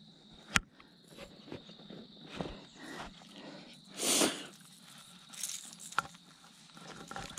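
Light clicks and rustles of hands unhooking a small bass held in a plastic fish lip-grip, with a short, louder rustling burst about four seconds in.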